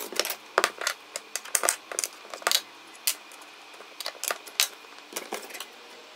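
Irregular sharp metallic clicks and clinks as a router motor is pulled out of a Shaper Origin handheld CNC router, set down on an aluminium sheet and handled to change its bit to a spot drill, then set back into the machine.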